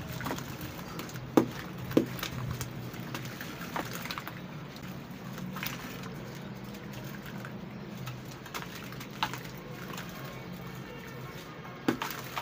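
A wet red sand brick crumbled, swished and squeezed by hand in a tub of muddy water: wet squishing and sloshing, with a few sharp wet pops, the loudest about a second and a half in, at two seconds and near the end.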